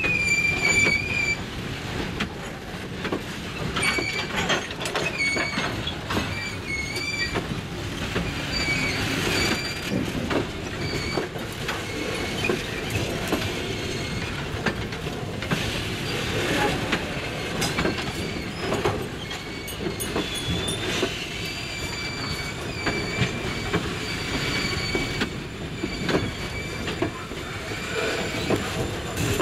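Freight train of boxcars rolling past, steel wheels squealing off and on in high thin tones over a steady rumble and the clatter of wheels on the rails.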